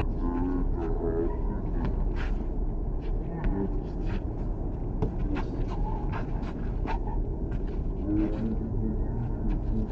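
Pickup basketball play: a basketball bouncing on the court and players' footsteps, heard as irregular short knocks about one or two a second over a steady low rumble.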